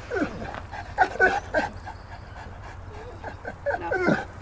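A dog whining: a string of short cries that fall in pitch, the loudest near the end.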